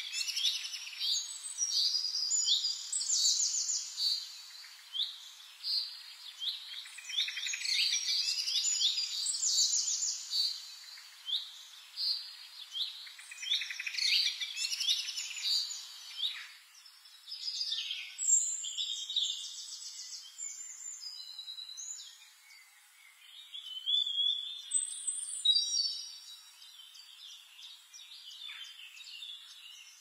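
House finch singing a long, rapid, jumbled warble in the first half. After about 16 s the song thins out to sparser, high chirps and whistled phrases.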